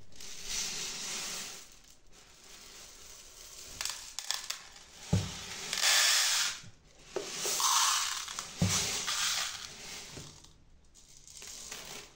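Dry green grams (mung beans) poured from a small plastic cup into a plastic storage box: a rattling, pattering hiss in several pours, with two dull knocks between them.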